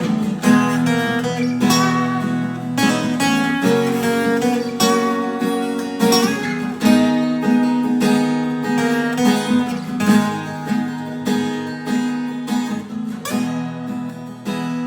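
Acoustic guitar strumming chords in a steady rhythm, each strum ringing on into the next.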